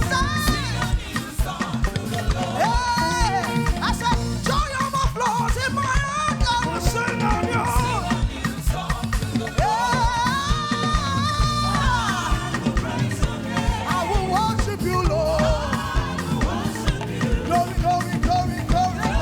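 Live praise and worship music: a band playing with a steady, busy beat while a lead singer carries a wavering melody over it.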